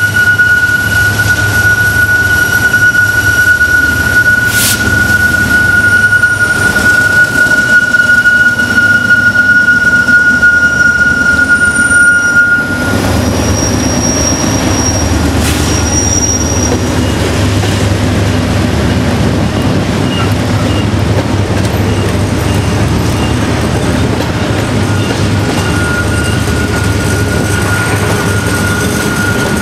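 Norfolk Southern diesel freight train passing close by, with a steady low rumble. For about the first twelve seconds the locomotives go by louder, with one held high-pitched wheel squeal. Then the freight cars roll past a little quieter, and the squeal comes back near the end.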